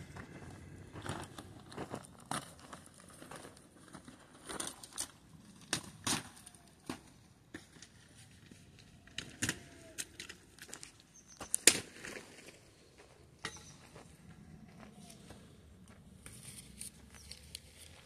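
Plastic sheeting crinkling and crackling in scattered, irregular sharp snaps, the loudest about two-thirds of the way through.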